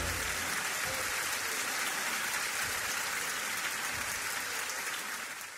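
Audience applauding, a steady even patter of many hands that fades out near the end.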